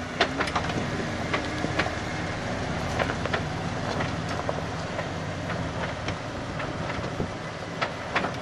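Jeep Wrangler engine running at a low, steady crawl as the Jeep creeps over a rock ledge, with irregular sharp clicks scattered over it.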